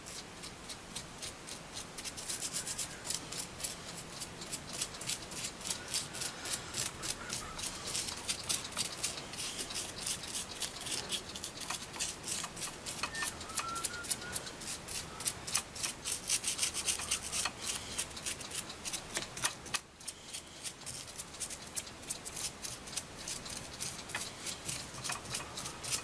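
Paintbrush scrubbing paint onto the textured sword of a polymer-clay sculpture in quick scratchy strokes, about five a second, with a short pause about twenty seconds in.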